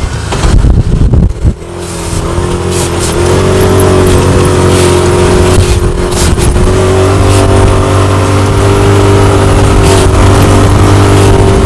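Side-by-side UTV engine heard from inside the cab while driving a dirt trail: uneven for the first two seconds, then settling into a steady engine drone at a constant speed, with a few sharp clicks over it.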